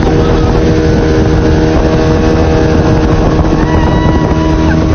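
Motorboat engine running at speed with a steady drone, mixed with rushing water from the boat's wake.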